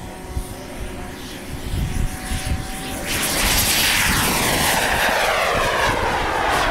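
Radio-controlled model airplane's engine at full power on a takeoff run: fairly quiet for the first three seconds, then loud as the model races past, its pitch falling as it goes by and climbs away.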